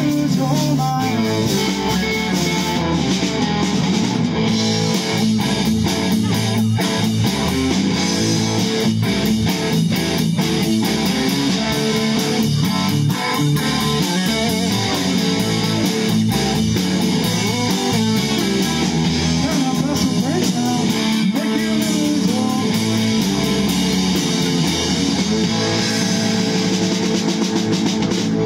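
A blues band playing live with no singing: an electric guitar takes the lead over a drum kit with a steady beat.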